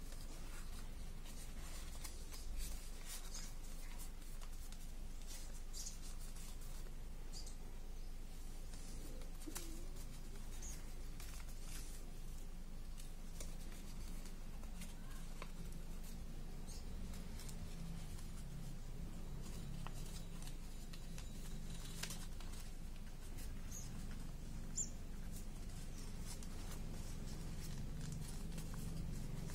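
Origami paper being folded and creased by hand: faint rustles and soft crinkling ticks over a steady low hum. A few faint short high chirps are heard now and then.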